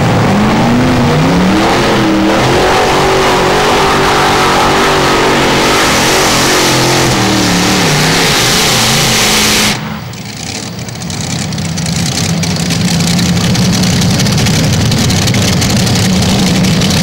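Modified pulling tractor's supercharged engine at full throttle, dragging the weight sled. The engine revs up over the first couple of seconds and is then held high. About ten seconds in the throttle is cut abruptly, ending the pull, and the engine runs on at a low, steady idle.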